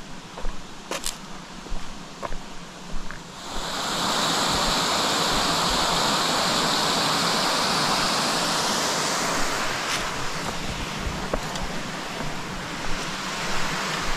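Footsteps on concrete, then about three and a half seconds in the steady rush of a small creek waterfall comes up and holds, easing a little toward the end, with a few more steps over it.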